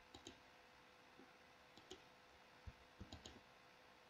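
Near silence with a handful of faint, scattered clicks from a computer mouse being worked.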